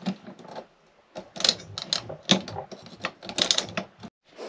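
Metal car seat slider rails being handled and worked: a run of sharp metallic clicks, rattles and knocks from the rails and their latch, in several quick clusters, cutting off abruptly near the end.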